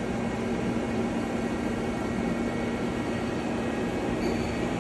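1995 Mazak SQT15MS CNC lathe running with its spindle turning in manual mode at a few hundred RPM: a steady, even hum with one constant low tone. It runs nice and quiet and smooth, with no bearing noise, a sign of a spindle in good order.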